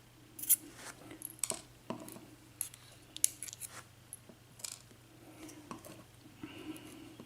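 Scattered light clicks, taps and scrapes of small metal lock parts and tools being handled: the pins and springs of a disassembled lock cylinder. A steady low hum underneath.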